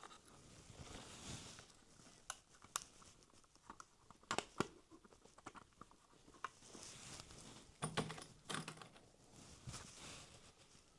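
Faint scattered clicks and soft rustling of hands handling a plastic OO-gauge Heljan Class 58 model locomotive, with cocktail sticks worked into the joint between body shell and chassis to unclip it. A few sharper clicks stand out among quieter handling noise.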